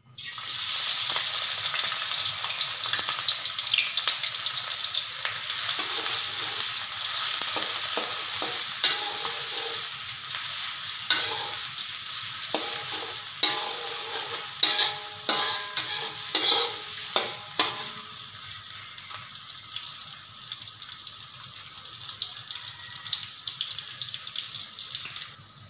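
Sliced shallots, garlic and onion sizzling as they hit hot oil in an aluminium wok and fry, with a metal spatula scraping and knocking against the wok as they are stirred. The sizzle is loudest at first and eases off in the second half; the spatula knocks cluster in the middle.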